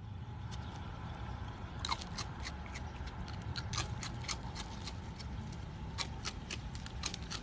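Raccoon chewing and crunching ring cereal: a string of sharp, irregular crunches, a few a second, over a low steady rumble.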